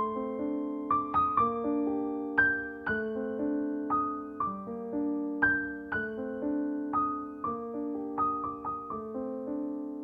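Slow solo piano music: single struck notes over held chords, with a new note about every half second to a second.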